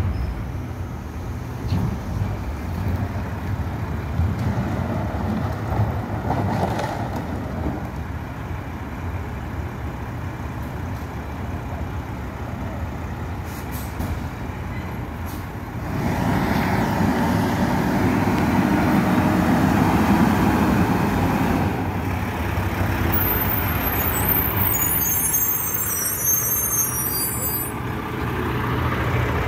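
Garbage truck's diesel engine running steadily, getting louder and fuller about halfway through as it works harder. A high-pitched sound comes in near the end.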